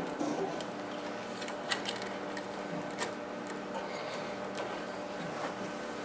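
Hands handling a bundle of insulated wires: light rustling with a few small clicks, over a faint steady hum.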